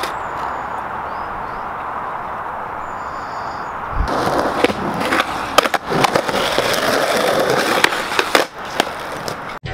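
Skateboard wheels rolling steadily over pavement. About four seconds in, the rolling turns louder and rougher, with a run of sharp clacks of the board hitting the ground.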